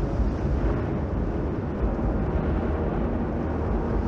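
Low, steady rumble of an erupting volcano.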